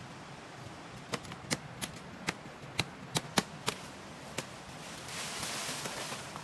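A blade chopping at a sapling near its base: about nine sharp strikes, spaced unevenly over some three seconds. A rustle of leaves follows near the end.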